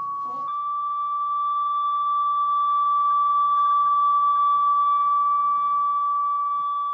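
Steady 1 kHz test tone from a loudspeaker driven by a signal generator through a long paper tube. It grows louder toward the middle and fades again as the listening position crosses in front of the tube's opening.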